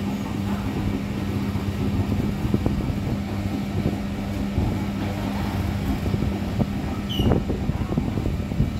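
Electric motor of a coconut-processing screw-press machine running with a steady hum, over clatter and knocks of a busy market.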